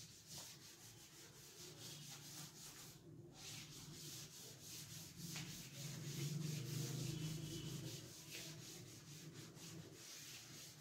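Chalkboard being wiped clean with a hand-held duster: faint, repeated rubbing strokes of the duster across the slate, loudest about six to eight seconds in.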